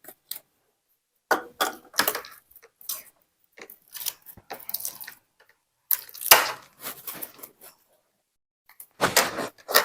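Jelly glitter slime squeezed and pulled by hand: irregular wet squishing and sticky popping sounds in short bursts, with pauses between them.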